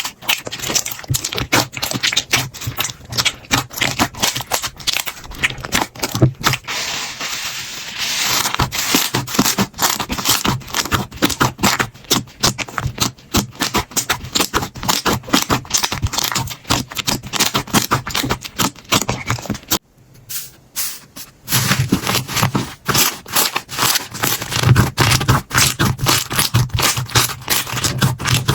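Hands squishing and stretching slime close to the microphone, a dense run of sticky clicks, pops and crackles. The sound drops away briefly about twenty seconds in, then resumes.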